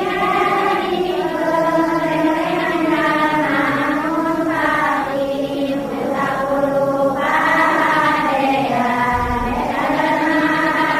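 A group of voices chanting a religious verse in unison, with long drawn-out melodic lines and short breaks between phrases.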